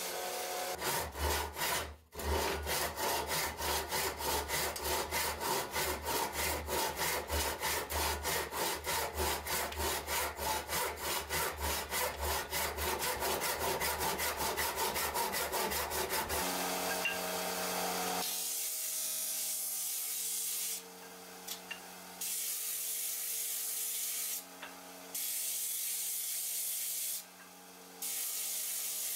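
A belt grinder grinds steel for the first couple of seconds. Then a hand saw cuts a wooden block in a steady rhythm of rapid strokes for about fourteen seconds. After that a bench disc sander runs and sands the end of a wooden block, its hiss stopping briefly each time the block is lifted off the disc.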